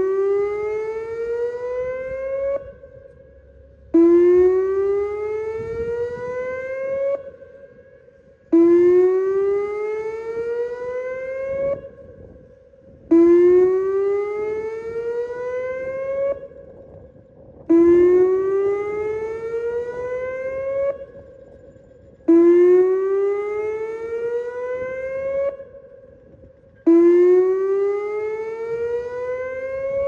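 Whelen WPS 2740 electronic tornado siren sounding its whoop tone on a scheduled test. Each whoop is a rising sweep about three seconds long that cuts off abruptly, followed by a short gap, repeated about every four and a half seconds.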